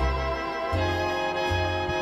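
Slow background music in a swing or big-band style, brass instruments holding notes over a low bass line that moves step by step.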